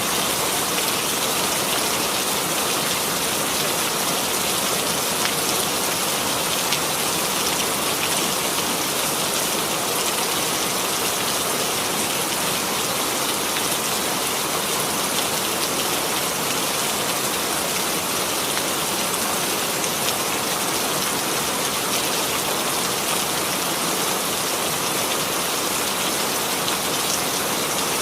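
Steady rain falling on a surface, a dense patter of many drops with no change throughout.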